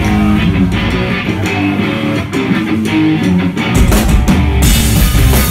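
Live rock band playing loudly: an electric guitar riff, then the full band with bass and drums comes in heavily about four seconds in.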